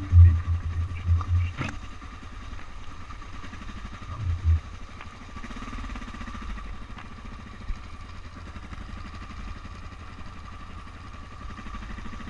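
Off-road motorcycle engine running at low revs, with loud low bursts in the first second and a half and again about four seconds in, and one sharp click shortly after the first bursts.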